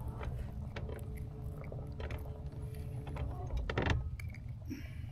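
Small clicks and rattles of a crappie being unhooked by hand, with a denser rattle of clicks nearly four seconds in, over a steady low rumble.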